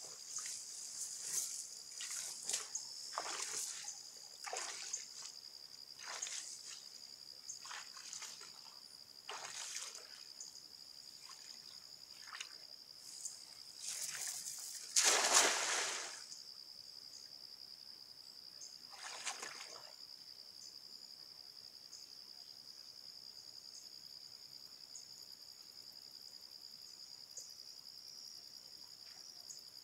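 A cast net slaps down onto the lake surface with a splash about halfway through, the loudest sound, after a string of shorter splashes and rustles as the net is handled and swung. A steady high insect drone runs underneath.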